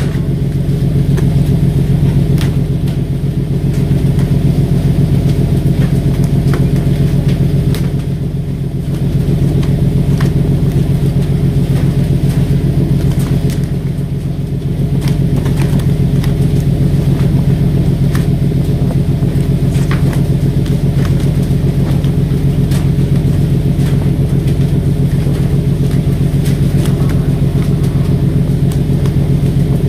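A fishing boat's diesel engine running steadily, a constant low drone, with faint scattered knocks on top; the drone eases briefly twice.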